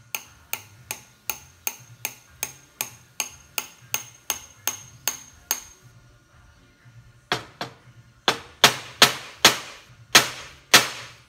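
Steel ball-peen hammer tapping a wedge into the end of a new hickory handle in the eye of a brass hammer head, to lock the head on. First comes a steady run of light, ringing taps, about three a second. After a short pause come a handful of harder, louder blows.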